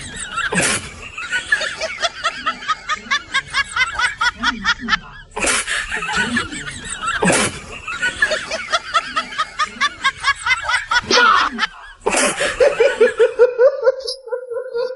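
Snickering laughter: long runs of quick, repeated chuckles, breaking off twice, with a lower, steadier laugh near the end.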